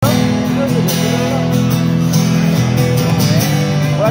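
Live band music through a large outdoor PA, picked up from within the crowd: a strummed acoustic guitar over steady held backing chords, the instrumental opening of the song before the vocals come in.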